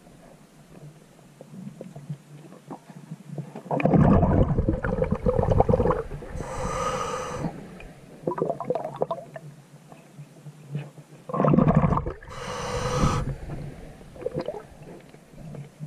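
Scuba diver breathing through a regulator, heard underwater: twice, a rumbling rush of exhaled bubbles is followed about a second later by a hissing inhalation with a whistling tone.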